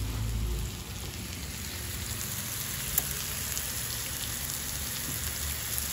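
Meat sizzling on a round grill pan over a portable gas range: a steady crackling hiss of fat frying. There is one sharp click about three seconds in.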